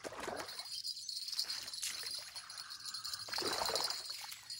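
A hooked fish thrashing and splashing at the water's surface near the shore, in two bursts: one at the start and a larger one about three and a half seconds in.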